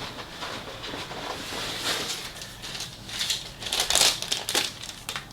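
Paper wrapping on a Subway sub crinkling and rustling as it is handled and turned over, in irregular bursts that are loudest about four seconds in.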